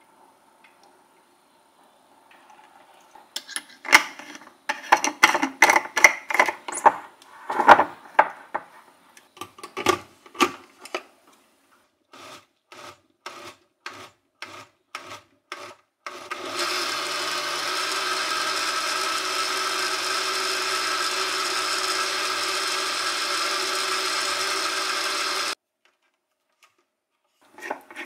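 La Gourmet retro countertop blender running steadily for about nine seconds as it blends a banana, avocado and kale smoothie, then cutting off suddenly. Before it comes a run of clicks and knocks as the glass jar is handled and set onto the blender base.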